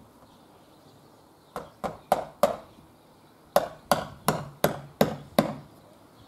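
Hammer blows driving in a nail: four quick strikes, a short pause, then six more at a steady pace.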